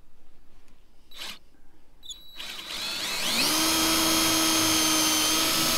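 Cordless drill starting up about halfway through, its whine rising in pitch and then holding steady as it drills a screw hole through the boat's fiberglass deck.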